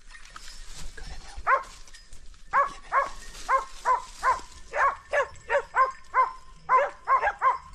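Hunting dog barking over and over in a steady run, about two to three barks a second, starting about a second and a half in.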